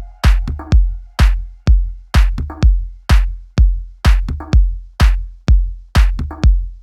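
Electronic dance music: a drum-machine beat with a heavy kick drum about twice a second and lighter drum hits between.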